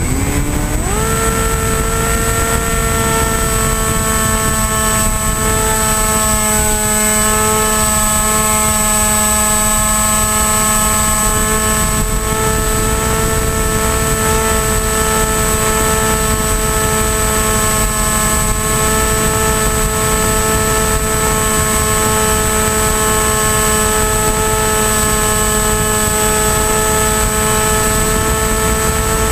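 Electric motor and pusher propeller of an AXN Floater-Jet RC plane spinning up over about the first second, then holding a steady whine, with wind rushing over the onboard camera.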